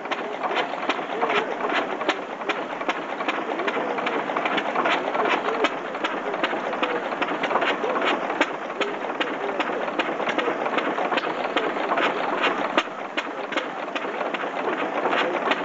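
Small vintage stationary engine running steadily, with an even putt-putt exhaust beat of about two to three a second.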